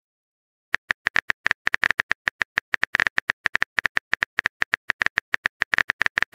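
Phone-keyboard typing sound effect: a rapid, uneven run of short key-tap clicks, starting about a second in, as a text message is typed out.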